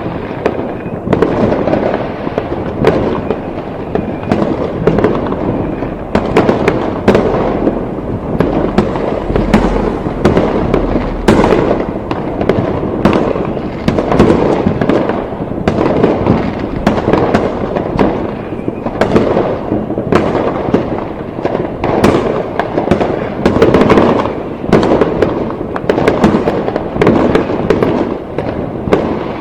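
Fireworks going off continuously: a dense, unbroken barrage of bangs and crackles, many overlapping each second, over a constant rumble.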